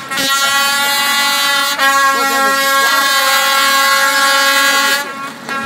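Air horn sounding in long, steady blasts at one pitch: a short one at the start, then two longer ones, the last cutting off about five seconds in.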